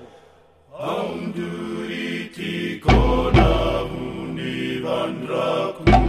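Background music with chanting voices that comes in about a second in, with deep drum hits about three seconds in and again near the end.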